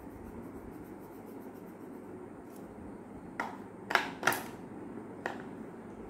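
Coloured pencil working on a paper colouring sheet over a desk, with four sharp clicks or taps in the middle, the two loudest close together about a third of a second apart.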